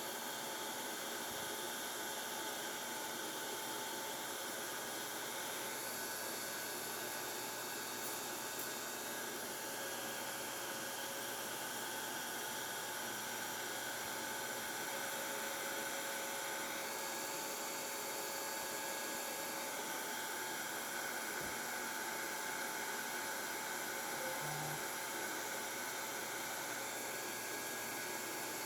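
Hair dryer running steadily on its low setting: an even rush of air with a faint steady whine.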